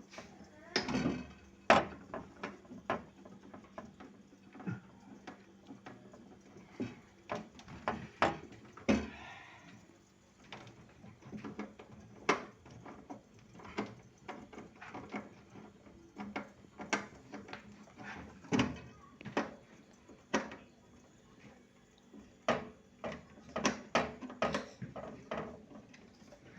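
Irregular knocks, clicks and light clatter of tools and parts being handled during refrigerator evaporator repair, over a faint steady low hum.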